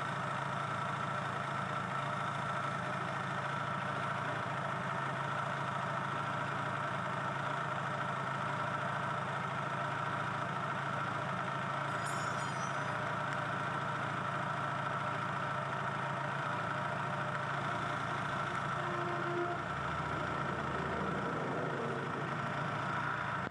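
Honda Shine motorcycle's single-cylinder engine running steadily at low speed, turning the chain and rear wheel.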